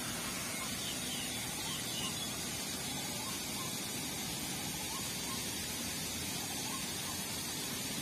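Steady, even hiss of outdoor ambience, with a few faint, short, high chirps.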